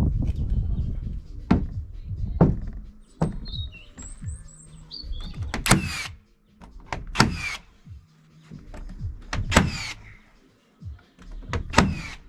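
A power tool runs in four short bursts of about half a second each, a few seconds apart, in the way a drill or driver sets fasteners into wooden siding boards. Sharp knocks of wood come between them, and a bird chirps a few times early on.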